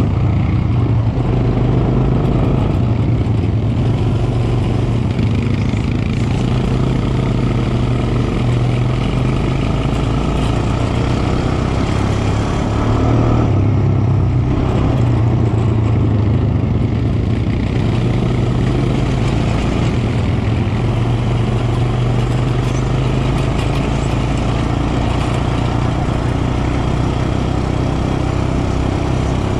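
Honda quad bike's engine running steadily as it is ridden at speed over sand, a constant low drone.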